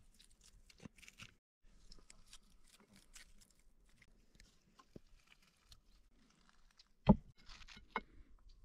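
Quiet crunching, crackling and clicking handling sounds, with one sharp knock about seven seconds in and a lighter one a second later.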